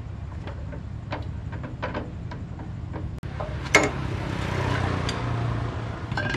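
Light metallic clicks and taps of parts being handled on a 15 hp diesel engine, then a sharp metal clank about four seconds in as the air cleaner cover comes off, followed by a scraping rustle of the filter housing being worked loose.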